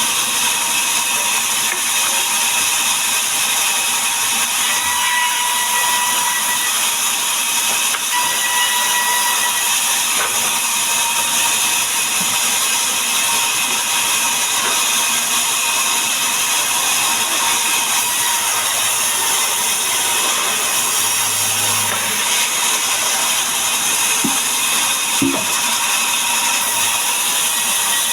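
Power saw cutting mahogany wood into planks, a loud steady whine with no let-up.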